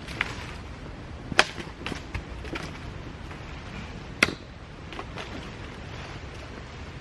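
Half a dozen sharp, irregular knocks or cracks over a steady low background, the loudest about a second and a half in and again just after four seconds.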